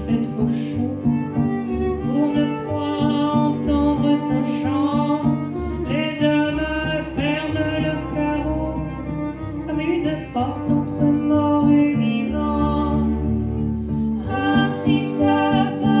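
Live cello played with the bow over sustained harmonium chords, with a voice singing a phrase about six seconds in and again near the end.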